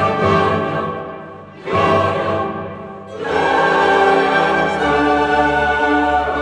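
Background choral music with orchestra: loud held chords in phrases, with a new phrase coming in about two seconds in and another about three seconds in.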